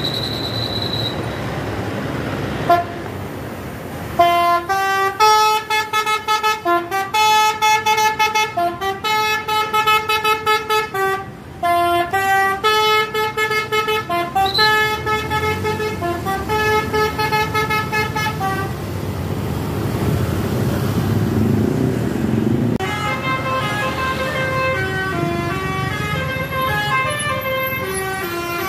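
Bus telolet horn, a multi-tone musical horn, playing a melody of short held notes that step up and down, from about four seconds in until about eighteen seconds. After a few seconds of engine rumble it plays another multi-note tune near the end.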